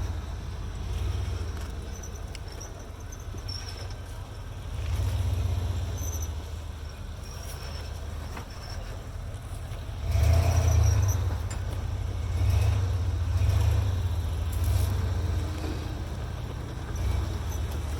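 Lifted Jeep Wrangler's engine rock crawling, a low rumble with the throttle surging up and down several times, the loudest surge about ten seconds in.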